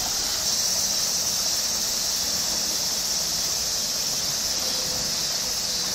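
Chorus of cicadas: a steady, high-pitched, hiss-like drone that does not change.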